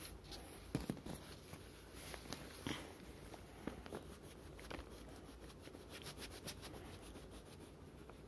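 Wax crayon scratching on drawing paper in faint, irregular strokes, with a few small clicks and taps between them.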